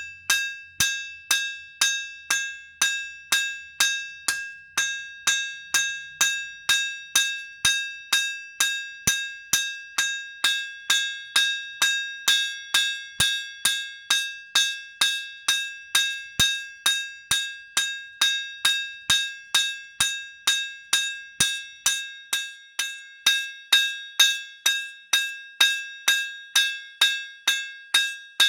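Hand hammer cold forging a thick bar of tool steel on an anvil: steady, evenly spaced blows at about two and a half a second, each leaving a clear metallic ring at the same two high notes.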